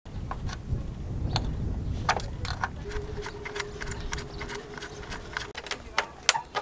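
Scattered sharp clicks and knocks of hands and a screwdriver working on a teak slatted seat fitted to a stainless steel stern rail, over a steady low rumble. A faint steady hum sounds from about three seconds in until about five and a half seconds.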